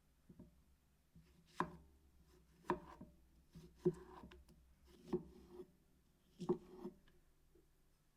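Knife cutting food on a cutting board: five separate cuts, a bit over a second apart, each a sharp knock with a short scrape after it.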